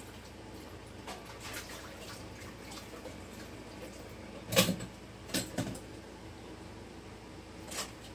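Dishes and utensils knocking and clinking as they are handled in a kitchen sink: a few light clinks, a sharper clatter about four and a half seconds in, two more about a second later, and one near the end.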